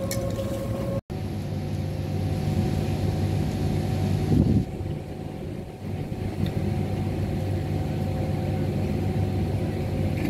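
Steady mechanical hum of an engine or generator running, with a low drone and a fainter higher tone. The sound cuts out for an instant about a second in, and a short louder rush of noise comes about four seconds in.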